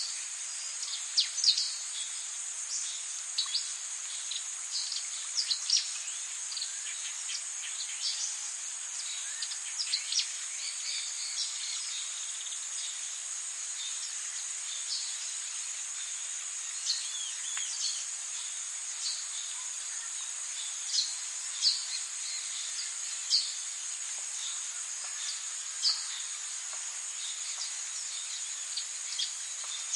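Forest ambience: a steady, high-pitched insect chorus, with frequent short, high bird chirps over it, many of them falling quickly in pitch.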